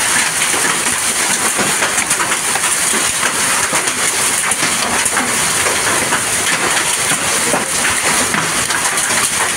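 Hail and heavy rain pelting down: a steady, dense clatter of countless small hailstone impacts over the hiss of the rain.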